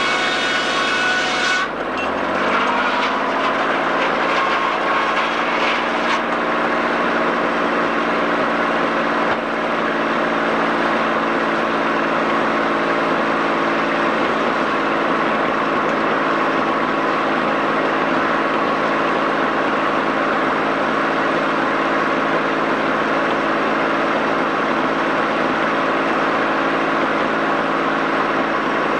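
Sawmill machinery running steadily: the power unit and headsaw working as a log is sawn on the carriage. About two seconds in, the high tones drop away and the pitch falls, then a steady, dense rushing noise with an engine hum underneath holds to the end.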